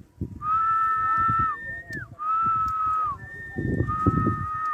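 Long, steady whistled notes, each held about a second and ending in a short downward slide, two pitches overlapping one another. A low rumble of wind on the microphone runs underneath and is strongest a little past the middle.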